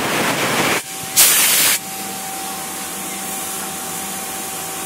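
Compressed-air blow gun hissing in two loud blasts, blowing chips out of a freshly bored steel tube; the first blast stops about a second in, and the second is short. A steadier hum with a thin whine follows.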